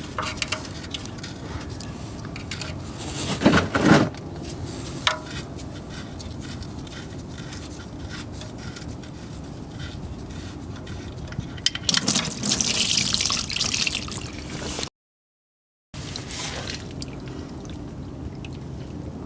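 Old engine oil draining from an open oil pan into a drain pan, a steady trickling stream. There is a louder clatter about three and a half seconds in and a louder hissing splash around twelve seconds in. The sound cuts out completely for about a second near the end, then the trickle resumes.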